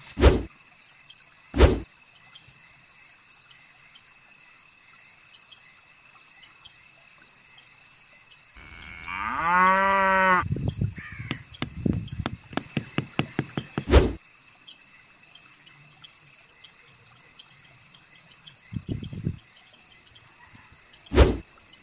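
A cow moos once, a long call about nine seconds in, followed by a quick run of clicks. A few sharp knocks fall at the start, about fourteen seconds in and near the end, over steady insect chirping.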